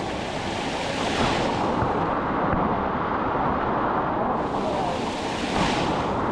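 Water of a waterfall rushing and splashing over rock close by, a steady, dense noise with no break.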